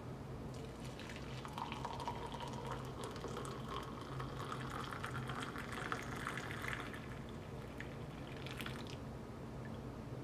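Coffee poured from a carafe into a ceramic mug: a splashing, trickling stream that starts about half a second in, rises a little in pitch as the mug fills, and stops near the end.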